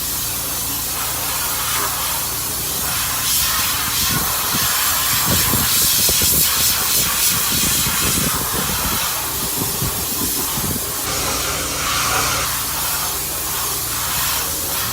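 A steady, loud rushing hiss over a low, even engine drone.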